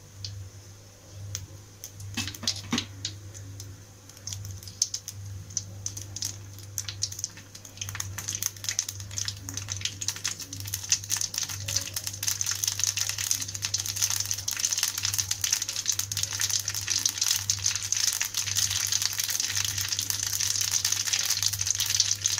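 Mustard seeds crackling and popping in hot oil in a kadai: scattered pops at first, building from about eight seconds in to a dense crackle and sizzle as the seeds splutter, the sign that the oil is hot enough for tempering. A low steady hum runs underneath.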